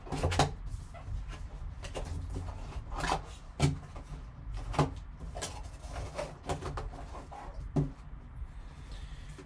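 Cardboard trading-card box being opened and handled: cardboard and a plastic tray insert rubbing and scraping, with about five sharp knocks and taps along the way.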